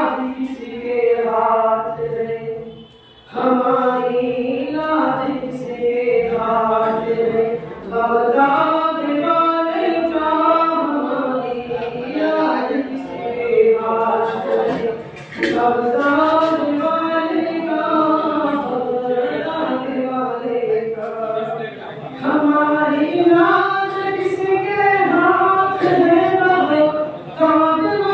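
A man singing a devotional naat unaccompanied into a microphone. He holds long, wavering notes in phrases of a few seconds, with short pauses for breath between them.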